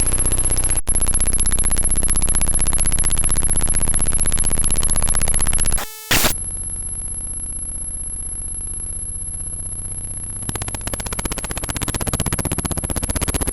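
Harsh synthetic buzzing noise, apparently a portrait image turned into sound, with a steady high-pitched whine over it. About six seconds in it breaks off briefly, comes back duller and a little quieter, then fills out again near the end.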